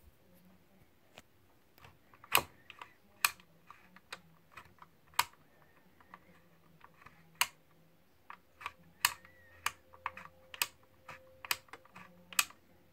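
Irregular sharp plastic clicks as a hand works the front of a Westcott heavy-duty electric pencil sharpener, turning its multi-hole size dial, with the motor off. The clicks come a second or so apart at first and crowd together in the last few seconds.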